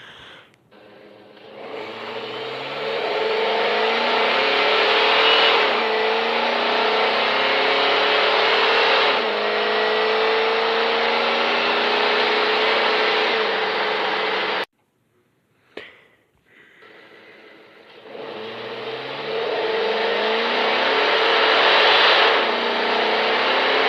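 GMC Savana van accelerating and driving, its engine and road noise building over a few seconds to a steady cruise. The take cuts off suddenly about fifteen seconds in, and a second take builds up the same way.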